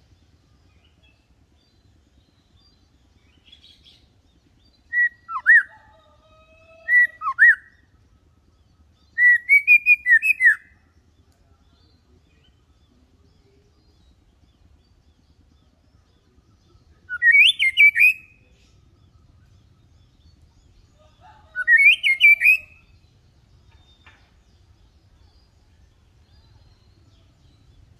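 White-rumped shama (murai batu) singing: five short phrases of clear whistled notes, some sliding down, with long pauses between them. The longest phrase comes about ten seconds in.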